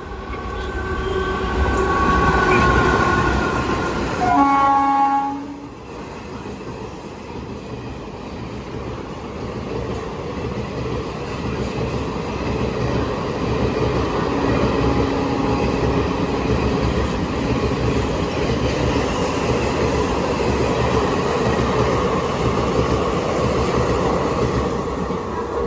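Jan Shatabdi Express train running through a station at speed without stopping: steady wheel rumble and rattle of the passing coaches, with a loud train-horn blast about four to five seconds in.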